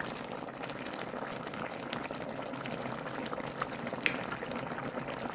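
A pot of chicken, chana dal and potatoes in water boiling, half cooked: a steady bubbling with scattered small pops.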